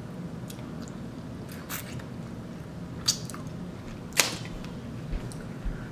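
Mussel shells clicking and cracking as they are handled and eaten, with soft chewing between; a handful of sharp clicks, the loudest about four seconds in.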